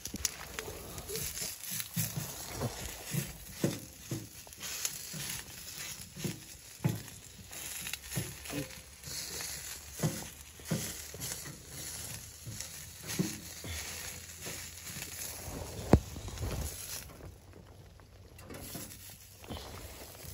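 Fabric rustling and crinkling with scattered soft knocks, irregular throughout, and one sharper click about 16 seconds in.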